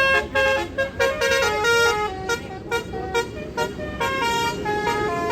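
A bus's telolet basuri horn playing a quick melody of short, bright notes, one after another, over a steady low rumble.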